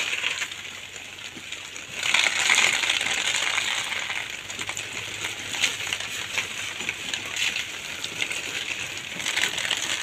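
Water from a hose pipe pouring and splashing over a hanging plastic mushroom grow bag: a steady hiss with a patter of drops, louder from about two seconds in. The bag is being soaked to cool it.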